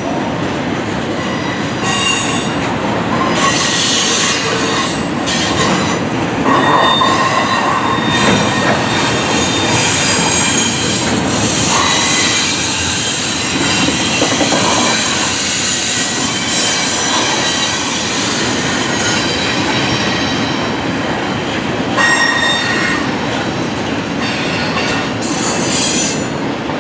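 Double-stack intermodal freight cars rolling past on steel wheels, a steady noise of wheels on rail with thin, high wheel squeals that come and go.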